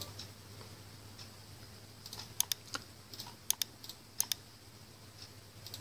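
Faint, scattered computer clicks, several in quick pairs, over a low steady hum.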